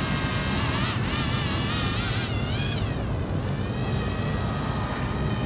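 DJI FPV drone's propellers whining in flight, the pitch wavering up and down with the throttle and fading away about three seconds in, over a steady low rumble.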